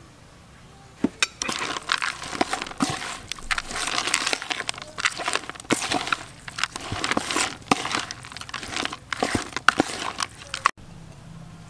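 A wooden spoon tossing sliced cow intestine with crushed peanuts in a red plastic bowl: a quick, irregular run of wet scrapes, clicks and knocks of spoon on bowl. It starts about a second in and stops abruptly near the end.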